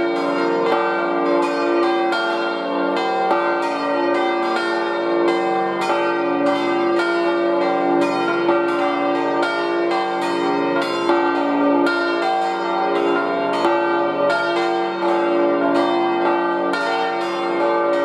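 Full peal of five swinging church bells, tuned d′, f′, g′, b♭′ and c″: four cast by Rüetschi of Aarau in 1956 and one cast in 1834. Their strokes overlap in a steady, irregular jangle of several strikes a second, each bell's hum ringing on under the next.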